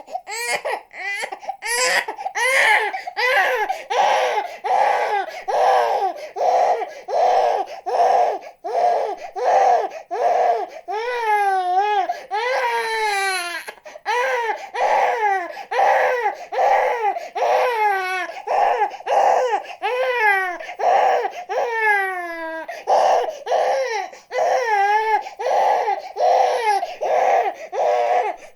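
Infant crying hard: a steady run of short, rapid wails, broken by a few longer wails that fall in pitch.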